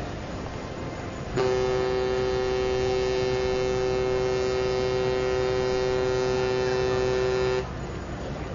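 Cruise ship Asuka's horn sounding one long, steady blast of two notes held together. It starts about a second and a half in, lasts about six seconds and cuts off sharply, over a low harbour background.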